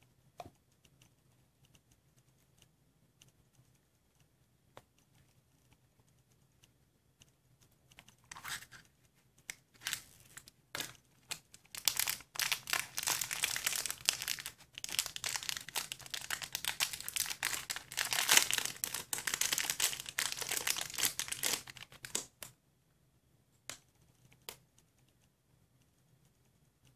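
Thin clear plastic wrapper around a small toy kart crinkling and being torn open. A few light clicks come first, then scattered crackles about a third of the way in, then steady crinkling for about ten seconds that stops abruptly.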